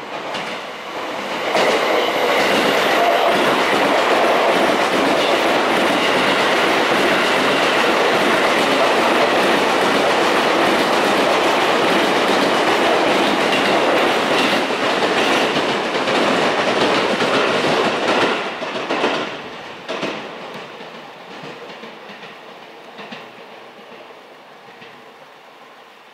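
Sotetsu 11000 series electric train passing a station platform at speed without stopping: a loud, steady rush of wheel and rail noise that builds over the first second or two and holds for about sixteen seconds. Near the end of the pass come a few sharp clacks over the rail joints, then it fades as the train moves away.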